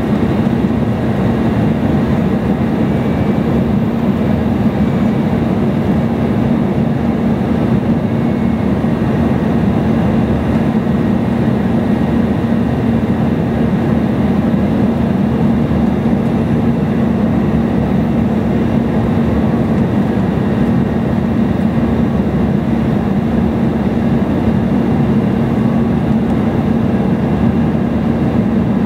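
Steady cabin noise of an Embraer E175 airliner in flight: an even rush of engines and airflow with a constant low hum, unchanging throughout.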